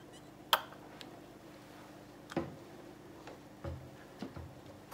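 Plastic paint squeeze bottle and funnel being handled: a sharp click about half a second in, then a few softer taps and knocks.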